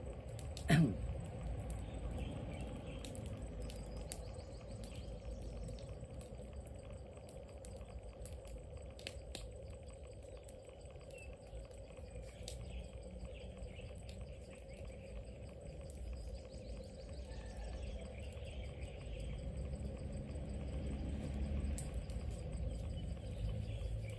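Outdoor background noise: a steady low rumble with faint insect chirping and scattered small clicks, and one brief louder sound about a second in.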